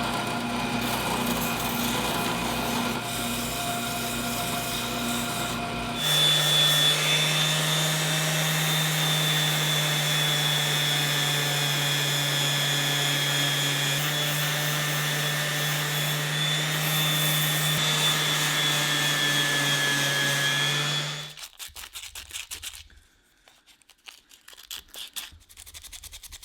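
Drill press running with a sanding wheel, grinding old paint off a metal motorcycle guard. The steady hum and whine changes tone about six seconds in, and the machine stops a little past twenty seconds in, leaving faint, broken handling sounds.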